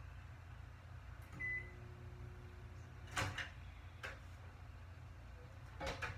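Faint household knocks and clatters from elsewhere in the house over a steady low hum, with a brief high tone about a second and a half in.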